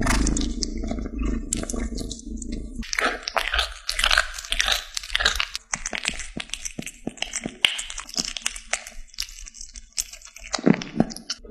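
Cat biting and chewing a chunk of raw red meat close up: an irregular run of sharp clicks and crunches. A low rumble sits under the first three seconds.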